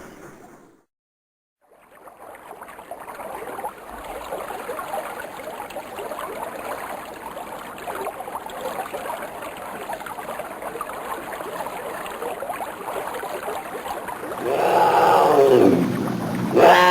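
Added sound effects: a steady rushing ambience like running water, then near the end two loud animal roars, each falling in pitch.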